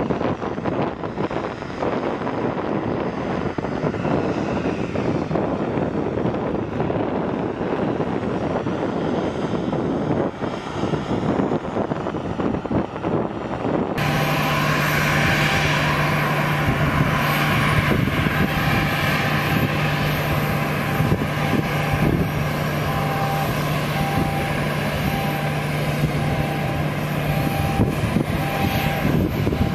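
Boeing 737 jet engines running at taxi idle, a steady noisy rush. About halfway through the sound changes abruptly to a 737 being pushed back by a tug, with a steady low hum and a thin higher whine over the engine noise.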